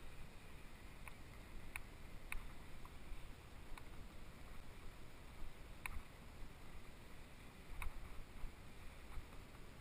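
Bicycle ride over paving heard from a camera on the bike: a steady low rumble of wind and tyre noise with a scattering of sharp, irregularly spaced clicks as the bike rattles over the pavers.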